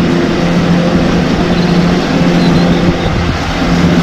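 Wheel loader fitted with a snow plow blade, its diesel engine running with a steady hum as it pushes through deep snow.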